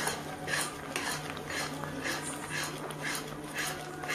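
Metal ladle stirring and scraping a thick milk and grated bottle gourd mixture around a metal kadhai, about two scrapes a second, with a sharp clink of the ladle on the pan at the start.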